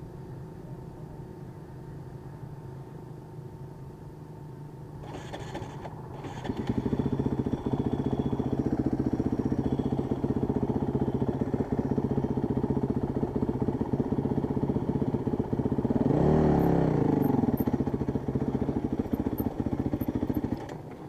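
Honda CRF dirt bike's single-cylinder four-stroke engine ticking over, then getting louder after about six seconds as the bike pulls away at low revs, with one brief rise in revs about two-thirds of the way through.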